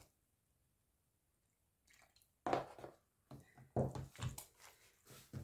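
A hand mixing and squeezing soft, wet flour-and-ayran dough in a plastic bowl: four or five short bursts of mixing noise from about halfway in, after a couple of seconds of near silence.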